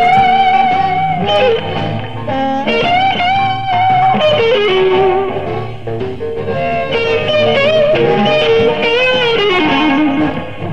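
Live electric blues band playing an instrumental passage, led by electric guitar with long held notes that bend and waver in vibrato, over bass and drums.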